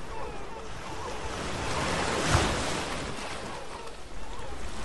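Sea surf and wind rushing steadily, swelling to a loud peak about halfway through, with a few faint seagull calls near the start.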